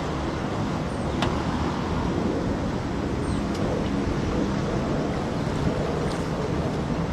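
Small outboard motor of a wooden river ferry boat running steadily as the boat pulls away from the landing, with wind buffeting the microphone.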